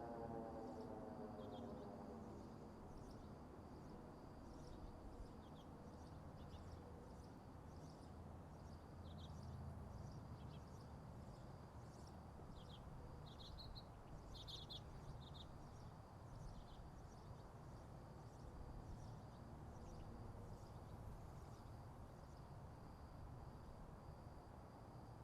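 The last of a Federal Signal 2001-DC electromechanical siren winding down, its falling pitch fading out in the first couple of seconds. Then faint outdoor quiet: a low rumble, scattered short bird chirps and a faint steady high tone.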